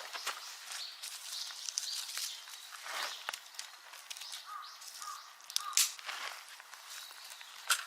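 Outdoor rustling and sharp clicks of handling, with three short bird calls about halfway through.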